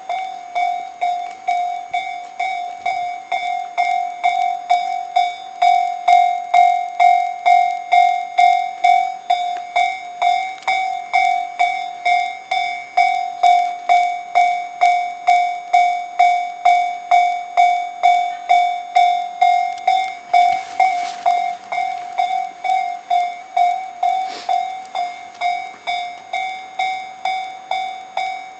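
Japanese railway level-crossing alarm ringing its electronic bell: a single-pitched ding repeating steadily at about two strikes a second, signalling that a train is approaching.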